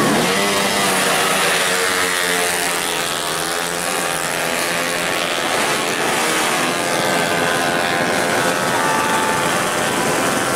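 Drag bike engines revving hard as the bikes accelerate down the strip, with a high engine note whose pitch climbs again and again.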